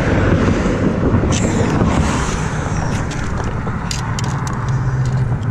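Steady road traffic rumbling on the bridge, with the body-worn camera's microphone rubbing against clothing and a few sharp clicks about four to five seconds in.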